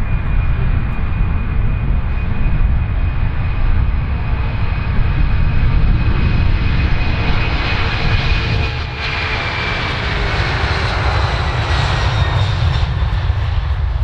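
Boeing 747-400's four turbofan engines at takeoff thrust as the airliner accelerates down the runway: a heavy, loud rumble with a high whine that drops in pitch as the jet goes by, a little past halfway.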